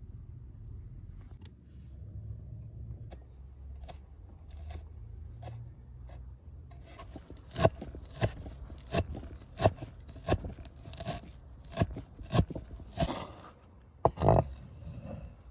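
Knife chopping on a cutting board: a run of sharp, evenly spaced cuts about every two-thirds of a second, after quieter rustling and scraping.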